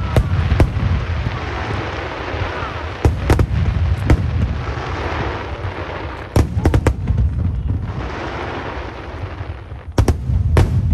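Aerial fireworks shells bursting in sharp bangs, singly or in quick groups of two or three every few seconds, over a steady low rumble and crackle from the display.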